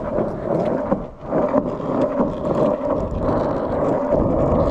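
Skateboard wheels rolling over a driveway with a steady rumble and scattered small clicks and knocks, easing off briefly about a second in.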